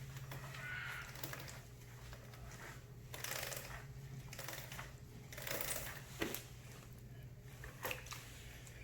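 Wet rag being wiped over a motorcycle's rear wheel rim to wash off wheel cleaner, a few scrubbing swipes with small knocks and clicks, over a low steady hum.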